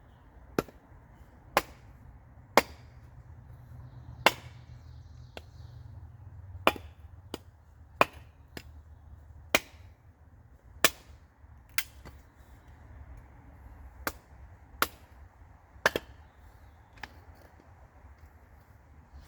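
A series of sharp cracks or knocks, about one a second at an uneven pace and varying in strength, over a faint low rumble.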